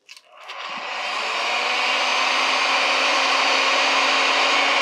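Electric heat gun switched on about a third of a second in, its fan rising to a steady blowing whir with a low motor hum, shrinking heat-shrink tubing over a crimped cable pin.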